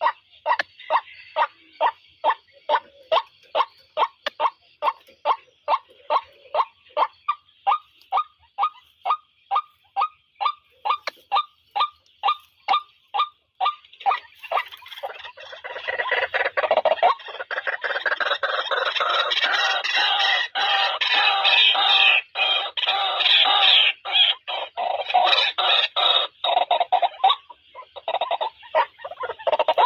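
White-breasted waterhen calling: a long run of evenly spaced short notes, about two and a half a second, creeping slowly up in pitch. About fifteen seconds in it breaks into a dense, harsh clamour of overlapping croaking calls. Near the end this settles back into single repeated notes.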